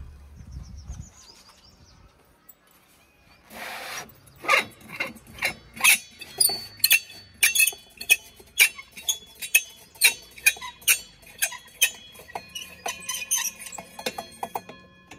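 A short whoosh, then a rhythmic track of chime-like clinking strikes about two a second, with ringing notes between them.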